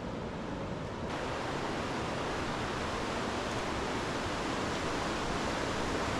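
The Tuolumne River rushing over rapids: a steady whitewater wash that becomes fuller and brighter about a second in.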